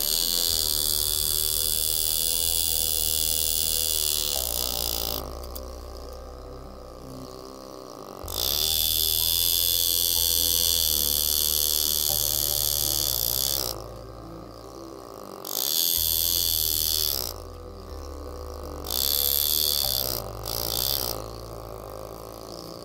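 Background music with a steady bass line, broken four times by bursts of loud, high buzzing hiss lasting one to five seconds each, from an air-driven engraving graver cutting into the stainless steel knife handle.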